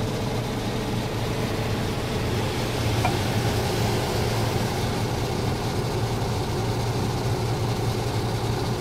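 Scania R450 truck's 13-litre inline-six diesel idling steadily, heard from inside the cab.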